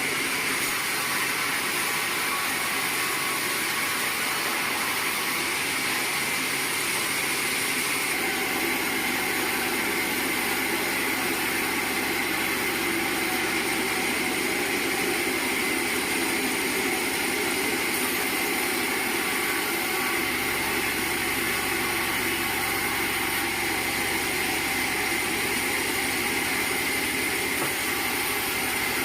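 Sawmill machinery running with a steady, unbroken mechanical drone; its deeper part grows fuller about eight seconds in and again around twenty seconds.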